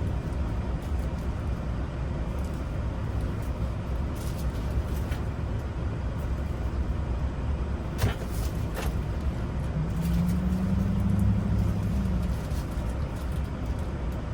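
Steady low rumble of a running motor vehicle, with a few light clicks and a brief steady hum about ten seconds in.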